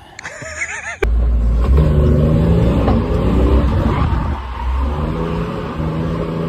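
A car engine revving hard under load, with a heavy low rumble. Its pitch climbs and drops again and again as the car is driven hard. The sound starts abruptly about a second in.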